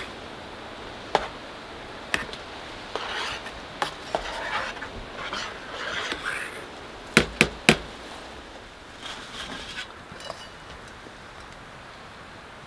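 A metal utensil stirring and scraping around inside a metal cooking pot, with scattered clicks against the pot's sides. A little after seven seconds in come three sharp clicks in quick succession, the loudest sounds.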